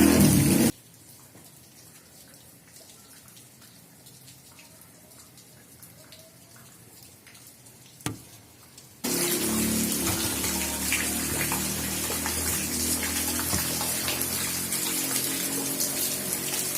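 Rainwater rushing and splashing steadily. It cuts off abruptly for about eight seconds, leaving faint ticks and one sharp click. The rush returns abruptly about nine seconds in and runs steadily.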